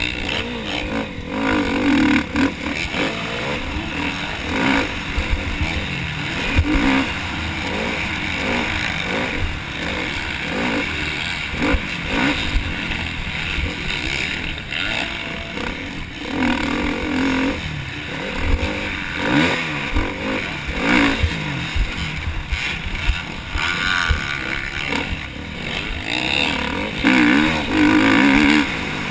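KTM motocross bike engine under hard riding, revving up and down again and again as the throttle opens and closes through turns and jumps, heard close up from a helmet-mounted camera.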